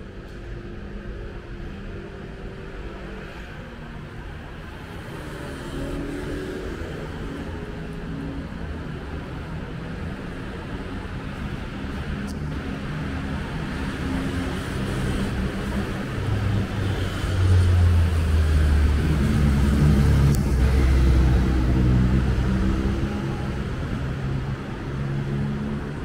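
City street traffic: road vehicles running past on the boulevard. It builds to a loud, low engine rumble about two-thirds of the way through, then eases near the end.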